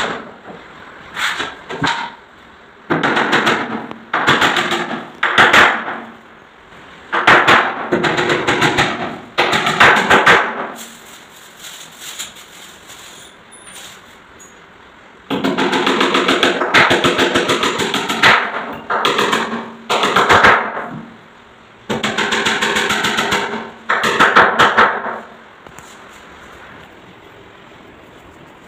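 Handheld power tool run in about ten short bursts of one to three seconds each, each burst a fast, even rattling pulse with quiet gaps between. This fits fasteners being driven into the plywood box frame.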